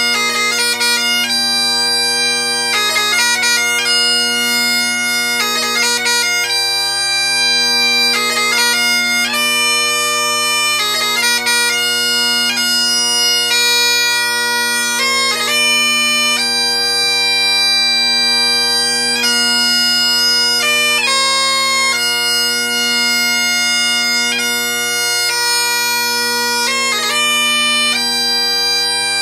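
Great Highland bagpipe playing piobaireachd: the drones sound one unbroken low chord beneath a slow chanter melody of long held notes, broken every couple of seconds by flurries of quick grace notes.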